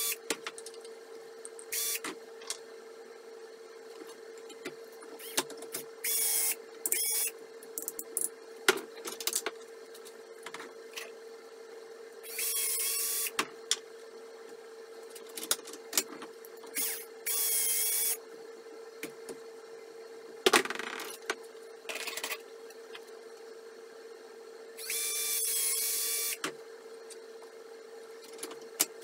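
Cordless drill/driver run in several short bursts of a second or two each, with a whine from its motor, while fastening wheel parts to wooden blocks. Between the bursts come sharp clicks and knocks of parts being handled, the two loudest about nine and twenty seconds in, over a steady faint hum.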